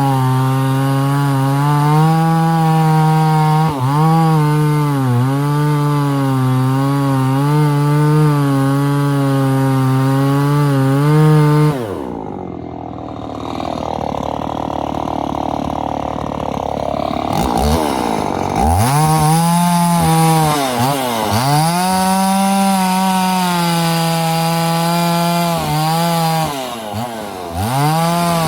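Husqvarna 50 Rancher two-stroke chainsaw running at high revs while cutting wood, its note dipping briefly again and again as the chain takes load. About twelve seconds in the revs fall sharply and stay low for several seconds, then climb back to full speed.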